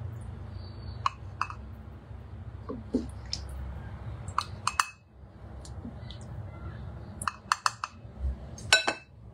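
Wooden spoon knocking against a Thermomix's steel bowl and a ceramic mug while broth is spooned out and poured: scattered clinks and taps, with a cluster of sharper, briefly ringing clinks near the end. A steady low hum runs underneath.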